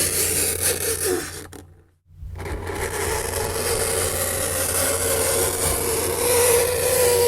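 Fingernails scraping across a chalkboard: a harsh, continuous scratching that stops briefly about two seconds in, then starts again.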